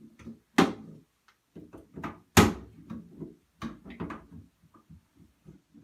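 Clunks and knocks of a shower head and its fittings being handled and fitted to the shower pipe, with irregular rattling and scraping between. The loudest knock comes about two and a half seconds in.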